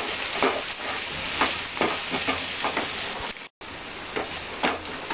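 Pumpkin pieces sizzling in oil in a nonstick kadai while a wooden spatula stirs the spices through them, scraping the pan in repeated strokes. The sound drops out for a moment about three and a half seconds in.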